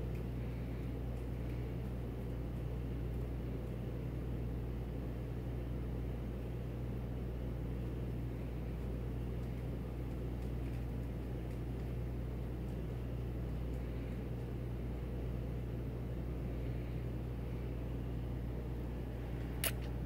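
Steady low mechanical hum with an even hiss, with one sharp click near the end.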